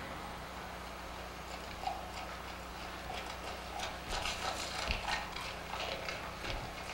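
Dancers' feet tapping and scuffing on a stage floor: scattered, irregular light taps that grow busier about two seconds in, over a low steady hum.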